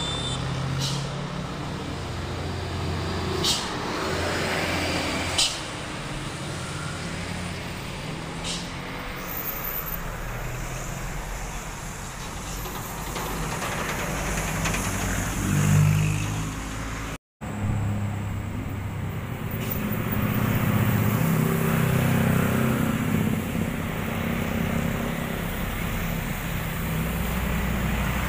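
Heavy diesel trucks and other road traffic passing on a hill road: truck engines running under load, mixed with cars and motorcycles, with a few short sharp clicks in the first several seconds. The sound cuts out completely for a moment about two-thirds of the way through.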